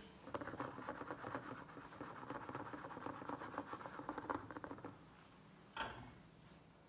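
A metal spoon spreading and smoothing tomato sauce over gnocchi in a glass dish: a soft, wet scraping of many small ticks for about five seconds, then a single clink of the spoon near the end.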